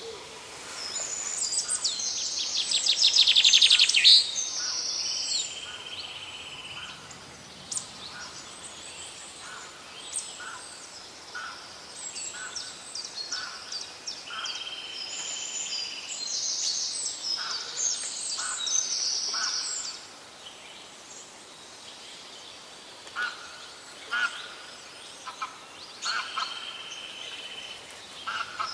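A songbird singing long, complex song phrases of high whistles and trills, one phrase with a fast trill that grows louder, the phrases recurring about every thirteen seconds, with short chirps in between.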